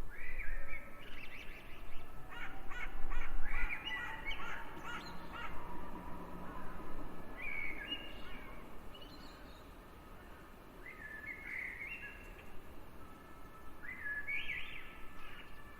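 Natural ambience with birds calling: a dense run of calls in the first few seconds, then scattered calls with a quieter stretch in the middle.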